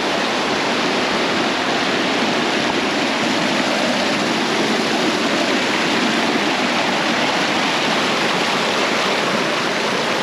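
Steady rush of a waterfall and its stream tumbling over rocks.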